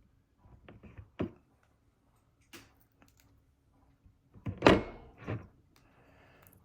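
Handling knocks and clicks as stick-on foot pads are pressed onto the bottom of a guitar effects pedal's metal enclosure, with two louder thunks about four and a half and five seconds in as the pedal is moved and set down.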